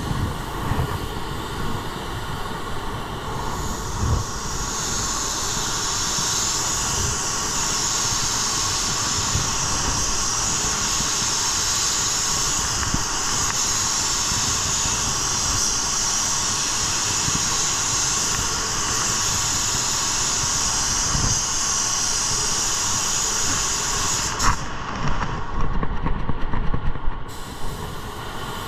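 Air spray gun hissing steadily as it lays a cross coat of metallic base coat to even out striping. The hiss stops with a click about 24 seconds in and is followed by a couple of seconds of uneven clatter.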